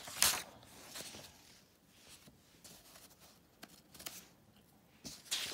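Pages of an old comic magazine being turned and smoothed by hand: a sharp paper rustle about a quarter second in, followed by softer brushing and rustling of paper, with another rustle near the end.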